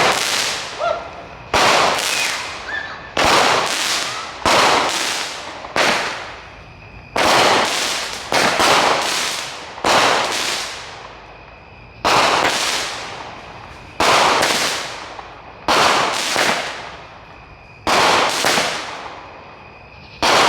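Fireworks going off in a fast series: a sharp bang every second or two, some in quick pairs, each one fading out over about a second.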